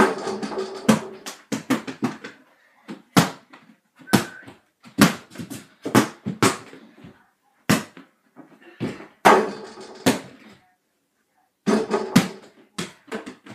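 A basketball bouncing again and again on the floor of a small room, in irregular runs of sharp thuds that ring briefly, with short pauses between runs.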